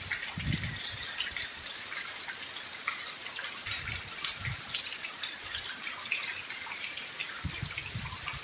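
Steady rain falling, with many separate drops ticking sharply close by over a constant hiss, and a few soft low thuds.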